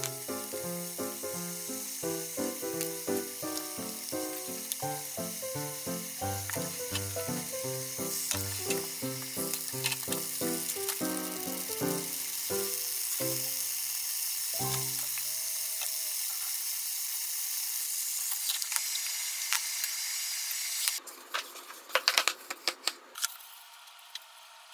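Pieces of meat sizzling in oil in a frying pan, the sizzle growing louder partway through and then cutting off suddenly. A few sharp clicks and knocks follow near the end.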